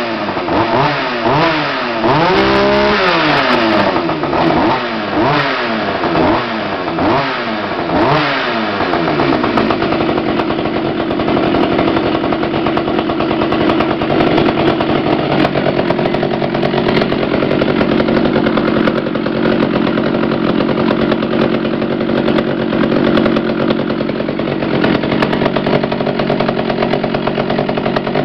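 Partner R18 two-stroke chainsaw running on its freshly cleaned carburettor: revved in a string of quick blips, one held a little longer, for the first several seconds, then settling into a steady, even run.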